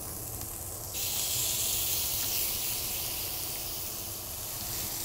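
Beef tenderloin sizzling in a hot ridged grill pan, a steady hiss that grows louder about a second in.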